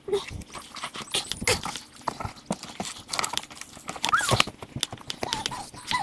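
Scattered scuffs and knocks of a person clambering out of a hollow tree trunk and running off, with a brief high rising-and-falling cry about four seconds in and a run of short chirping notes near the end.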